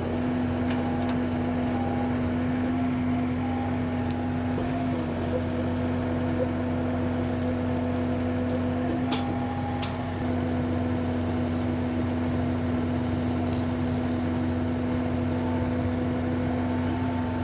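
Compact John Deere diesel tractor running at steady working speed, its hydraulics driving a loader-mounted hydraulic chainsaw (Limbsaw): an even mechanical hum with a few faint clicks.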